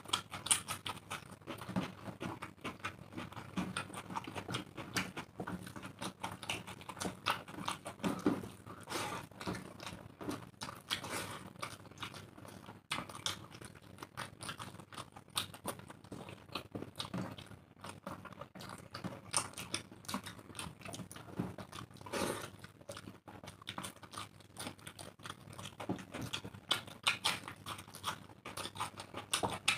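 Two people eating rice and egg curry with their hands close to the microphone: chewing, and fingers mixing rice on the trays, heard as a continual run of small clicks.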